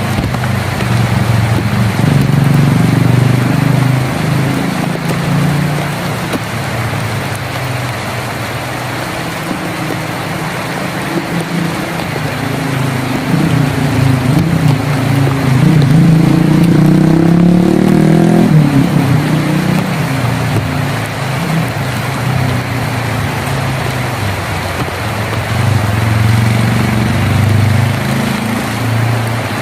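Heavy rain drumming steadily on a tin roof, with a deep low rumble under it that swells and fades, rising in pitch a little past the middle before dropping away.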